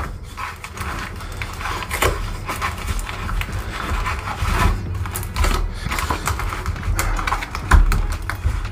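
A cardboard cold brew box being opened and handled, with irregular rustling, scraping and small clicks throughout.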